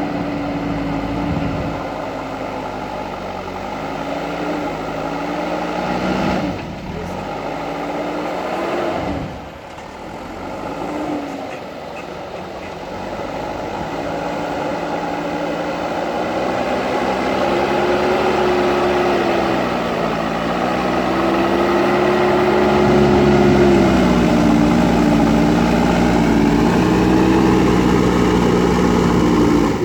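JCB backhoe loader's diesel engine running hard, its pitch rising and falling again and again as the machine works. It drops away briefly twice in the first third, then builds back up.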